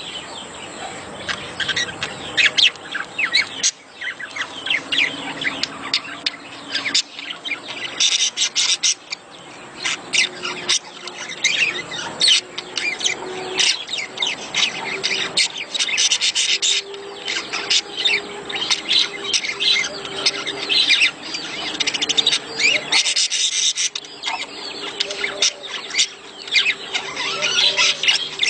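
Budgerigars chattering and warbling nonstop, many quick chirps overlapping: the courtship chatter of breeding budgies.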